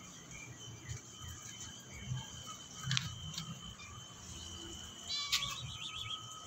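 Faint bird chirps over a steady high tone, with a louder chirping trill about five seconds in and a few soft knocks.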